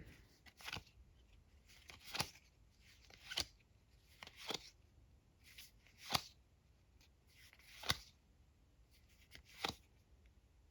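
Trading cards being slid off a stack one at a time, a short papery swipe every second or two, about seven in all.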